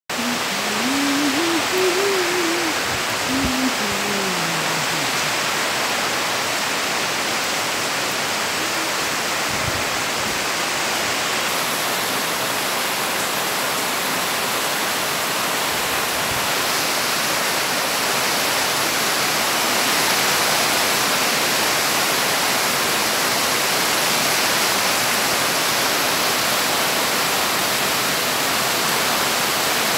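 Steady heavy rain pouring onto trees and foliage, a continuous loud hiss. A brief wavering tone sounds in the first few seconds.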